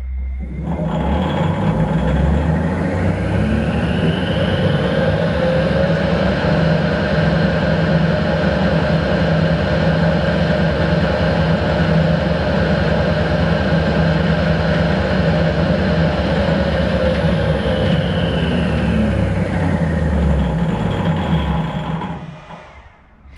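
Harrison 12-inch swing gearhead lathe run in its slow range from a variable frequency drive. The spindle speeds up over the first few seconds with a rising whine, runs steadily with a strange-sounding rattle, then slows and stops near the end. The rattle is the clutch plate rattling.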